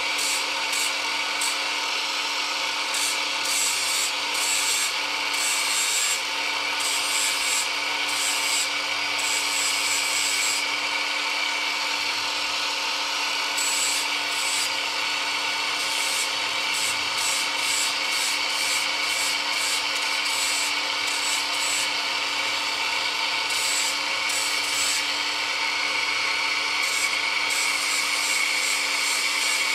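Small handheld rotary tool running steadily at high speed, its bit grinding a small part in short scratchy passes that come and go.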